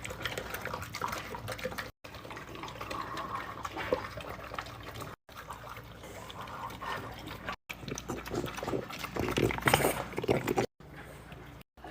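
Dogs eating from their bowls: wet chewing, licking and slurping with small clicks against the bowls. It comes in several short spliced clips that cut off abruptly, and the loudest stretch is about three-quarters of the way through.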